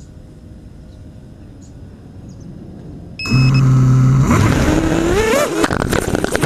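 Faint outdoor background noise, then about three seconds in the quadcopter's Cobra 2000kv brushless motors with GemFan 6045 props start up with a loud steady hum. About a second later they throttle up for takeoff in a rising, wavering whine.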